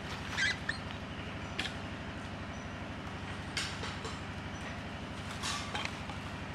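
A steady, low mechanical drone with a fast, even pulse, typical of a motor running nearby. A few short clicks stand out over it.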